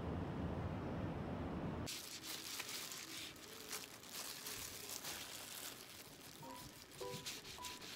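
A low steady rumble for the first two seconds. Then the crinkling and rustling of a thin plastic disposable glove and paper towel as raw cod pieces are handled and cut. Soft music notes come in near the end.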